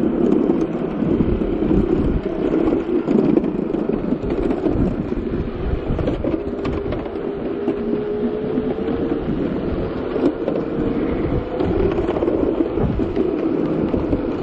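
Navee N65 electric scooter riding along: a steady rumble of tyres on the road mixed with wind on the microphone, with occasional low knocks. A faint thin whine comes in about six seconds in and fades out about five seconds later.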